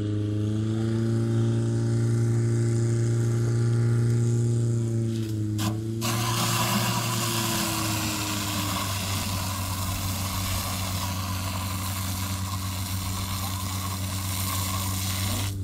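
Firesport portable fire pump engine running at high revs under load. About six seconds in, a loud steady hiss of water jets from the hose nozzles joins it, and the engine note dips slightly.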